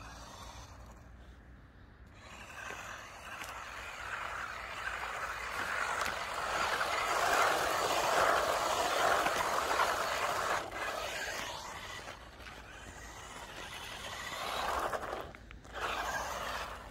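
Small 1/16-scale 4WD RC car on road tyres driving across rough tarmac: a hissing rush of tyres and drivetrain that builds over several seconds, is loudest around the middle, fades, then swells again briefly near the end as the car comes close.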